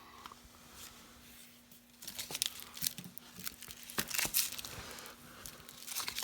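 Rustling and crinkling handling noise with irregular sharp clicks and knocks, starting about two seconds in, over a faint steady hum.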